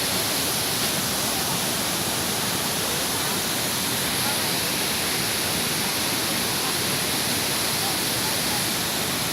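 Waterfall's falling water rushing steadily, an even hiss-like wash of sound that does not change.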